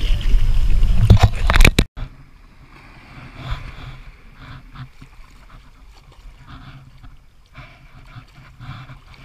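Kayak paddling on the sea: water and wind noise on the camera with a few sharp knocks and splashes. About two seconds in it cuts off abruptly to the faint wash of small waves lapping onto sand.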